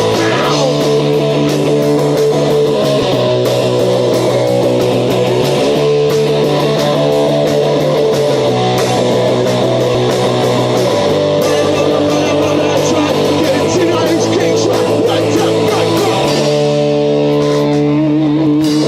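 Rock music: guitars playing over a bass line that changes note every two to three seconds, with a steady drum beat.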